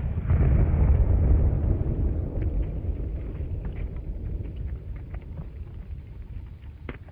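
The low rumble of a large explosion rolling away and slowly fading, with scattered faint crackles and a sharper crack near the end.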